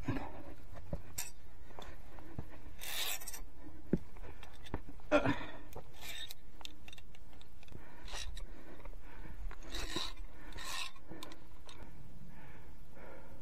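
Irregular scraping and rubbing of a climber's hands, boots and gear against rock close to the microphone, with a couple of sharp clicks about four and five seconds in.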